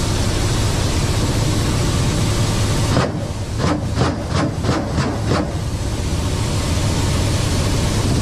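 Ka-52 attack helicopter cockpit noise: a loud, steady rumble from the rotors and engines with hiss over it. From about three seconds in, a quick, uneven string of about nine sharp bangs over two and a half seconds, typical of the helicopter's weapons firing.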